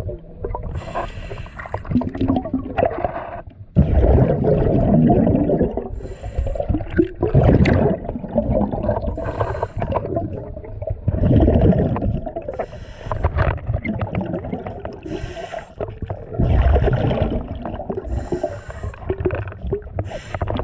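Diver breathing through a scuba regulator underwater: hissing inhalations with a faint whistle alternate with loud rumbling, bubbling exhalations, about five breath cycles.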